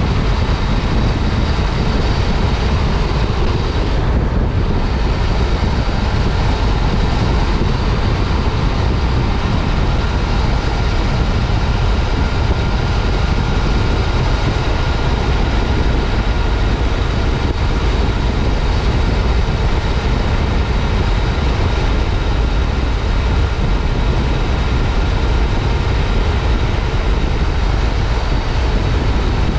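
2015 Yamaha FJ-09 Tracer's 847 cc inline-three engine running at a steady cruise under heavy wind rush, heard from a helmet chin-mounted microphone. Faint steady high tones sit over the deep, even rumble.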